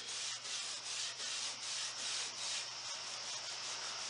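A pad of 0000 steel wool, wet with acetone, rubbed back and forth across the grain of a lacquered wooden tabletop, about three strokes a second. It is lifting the old lacquer finish and working on a stain in the wood.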